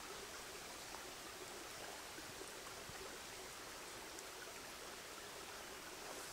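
Faint, steady forest ambience: an even rushing noise with a few small ticks and no distinct events.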